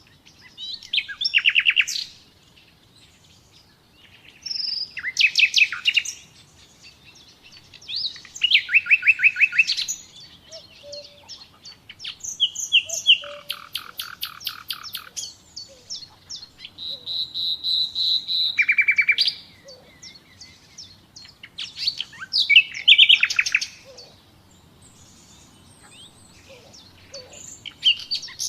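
Nightingale singing a series of short, varied phrases. Each phrase is a fast run of repeated notes or a held whistle, with pauses of a second or two between phrases.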